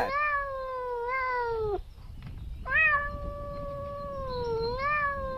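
Domestic cat meowing: two long, drawn-out meows, each wavering slightly in pitch. The first lasts nearly two seconds and the second begins about three seconds in.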